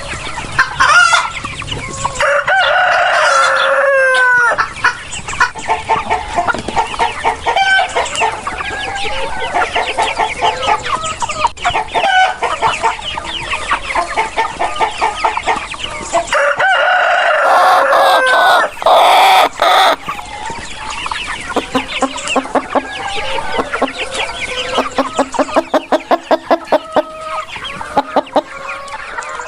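A flock of chickens clucking rapidly and continuously, with a rooster crowing twice: once a few seconds in and again a little past the middle.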